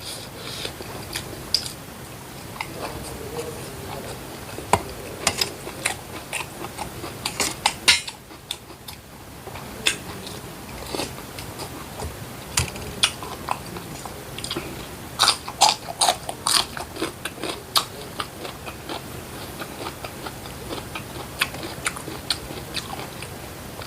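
Close-miked eating of spicy stir-fried catfish: biting and chewing, with many sharp crunches and wet mouth clicks, busiest about a quarter of the way in and again past the middle.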